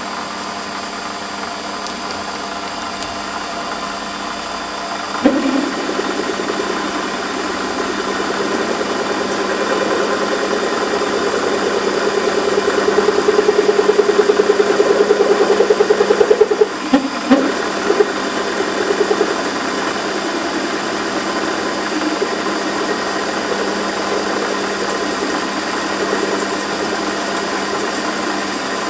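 Lathe running with a milling cutter being fed into a workpiece at full cutter depth, opening out a drilled pilot hole. The cut comes in about five seconds in as a fast, rattly chatter over the steady running of the machine. It is loudest in the middle, breaks off briefly, then continues more quietly.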